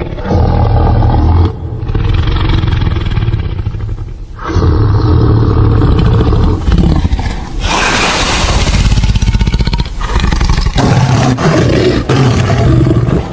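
A series of about five deep, loud roars, each lasting a second and a half to three seconds: a reconstruction of a prehistoric animal's call. The roar a little past the middle is harsher and more hiss-like than the others.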